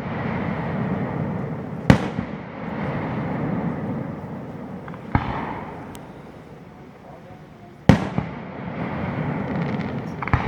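Aerial fireworks shells bursting overhead: four sharp bangs a few seconds apart, each trailing off in a long rolling echo.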